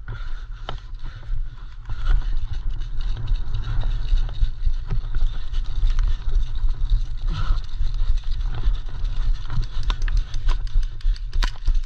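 Wind buffeting and movement noise on a body-worn camera's microphone: a heavy, uneven low rumble that gets louder about two seconds in, as the player runs. Sharp clicks and knocks cluster near the end.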